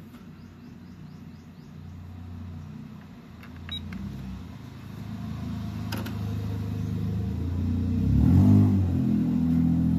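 Victor UX-Z11WMD micro stereo with its cassette section switched on for a playback test: a couple of mechanical clicks, then a low rumbling hum that builds and wavers near the end instead of clear sound, a sign the tape deck may not read.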